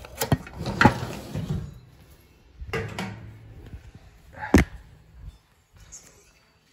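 Handling clatter: a cluster of sharp knocks and bumps in the first second, a rustling burst near the middle, and one sharp knock at about four and a half seconds.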